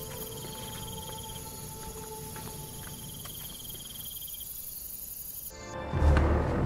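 Insects chirring in a steady, high, even drone, with a thin intermittent higher trill. Near the end the insect sound cuts off suddenly and a loud low rumble takes over.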